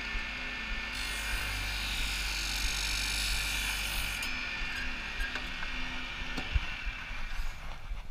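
Hose cut-off saw running, its blade cutting through rubber hydraulic hose with a louder hissing grind from about a second in until about four seconds in, then spinning on more quietly, with a few clicks near the end.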